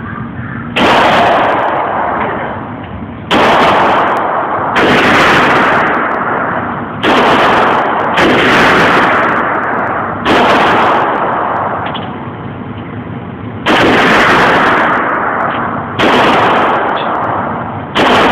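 AR-15 rifle firing single shots, about nine in all at uneven intervals of one to three and a half seconds, each a sharp crack followed by a long rumbling echo.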